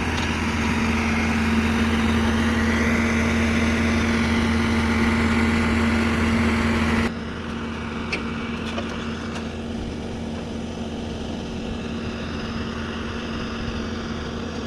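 Heavy machinery engine running steadily with a constant hum. About seven seconds in it cuts abruptly to a quieter engine hum.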